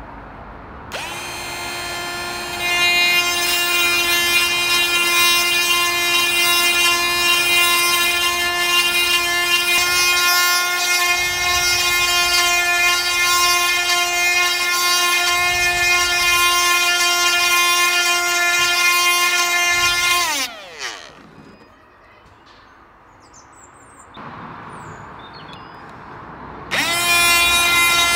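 Oregon 12V chainsaw sharpener's small grinding motor spins up about a second in to a steady high whine, with a gritty grinding rasp as the stone works a chain tooth. About 20 s in it is switched off and winds down with falling pitch, then starts again near the end with a quick rise.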